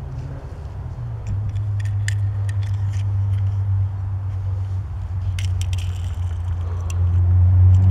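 Fingers handling and turning a small die-cast metal toy truck close to the microphone, giving a few light clicks and faint rubbing, over a steady low hum that grows louder near the end.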